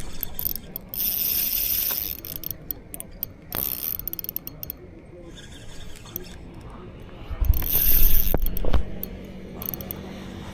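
Spinning reel being cranked, its gears clicking and whirring in uneven spells, with handling rustle and a louder bump and rumble about three quarters of the way through.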